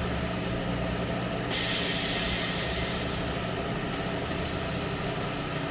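Grinder's tailstock quill being worked by push button. About a second and a half in, a sudden loud hiss of released air cuts in and fades over the next second or so, and a short click follows near four seconds in. Under it runs the machine's steady hum.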